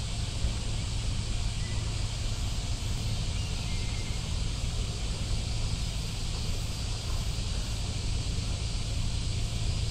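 Wind blowing on the microphone over a steady low engine rumble from a small boat moving slowly across calm harbour water.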